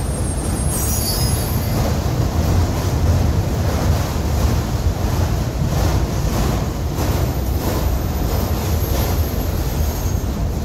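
Freight train of autorack cars rolling past: a steady, heavy low rumble of steel wheels on rail. A brief high wheel squeal comes about a second in, and a run of wheel clacks over rail joints comes in the middle.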